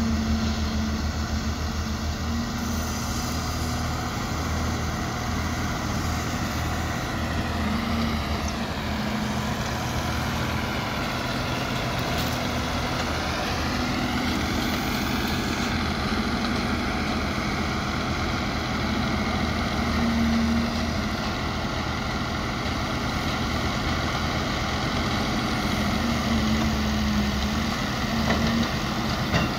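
Heavy diesel engine of a tracked excavator running steadily under work, a low drone with a pulsing hum. A higher whine above it sinks in pitch about eight seconds in and climbs back about fourteen seconds in.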